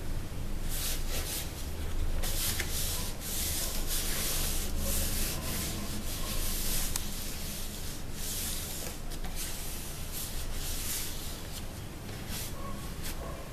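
Hands rubbing and smoothing a sheet of EVA craft foam, pressing it onto glued milk cartons so it sticks: a run of irregular rubbing strokes, thinning out near the end, over a steady low hum.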